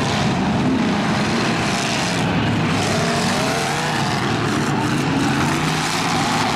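Several demolition-race pickup trucks running hard together on a dirt track: a loud, steady engine din, with pitches rising and falling as the trucks accelerate and lift off.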